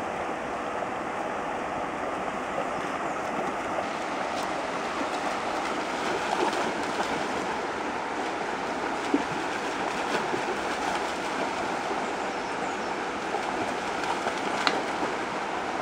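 Shallow river rushing steadily over stones, with a few brief splashes from a German Shepherd running through the water.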